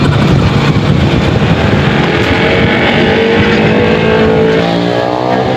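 Loud engine noise from a motor vehicle running close by. About halfway through, music comes in, with notes that step up in pitch.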